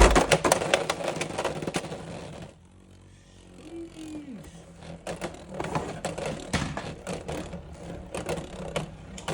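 Beyblade X spinning tops battling in a plastic stadium, with a sharp hit right at the start followed by rapid clicking, rattling and scraping. Around three seconds in it quietens to a brief lull, then the clattering and a steady low spinning hum come back.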